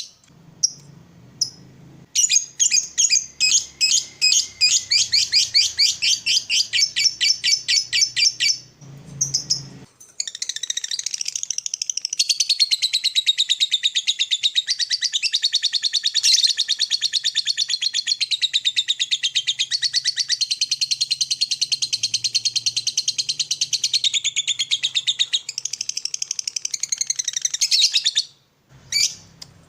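Lovebird chattering: first a run of short sharp notes at about four a second, then after a brief pause one long unbroken rapid chatter, the drawn-out 'ngekek' song, lasting nearly twenty seconds before it stops near the end.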